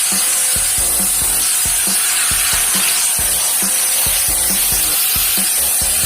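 Sun Joe SPX6001C-XR 40-volt cordless pressure washer spraying a steady high-pressure jet: a constant loud hiss of water, with uneven low thuds beneath.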